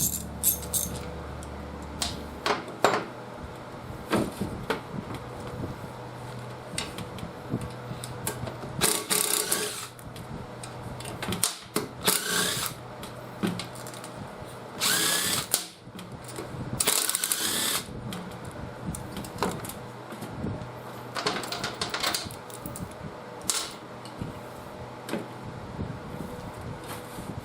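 Power drill-driver run in short bursts, about six times, each lasting a second or so, with small clicks and knocks in between.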